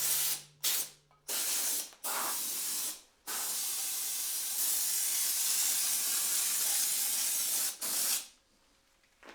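Paint being sprayed: several short hisses about a second apart, then one long steady hiss of about four and a half seconds and a final short burst.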